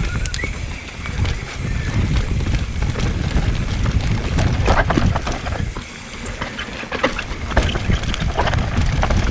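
Mountain bike riding down a rough, loose, dry trail: tyres rolling over dirt and rocks, with frequent sharp knocks and rattles from the bike, over a steady low rumble of wind on the microphone.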